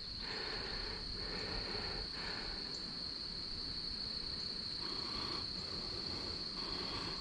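Insects calling: a steady, unbroken high-pitched trill held at one pitch throughout.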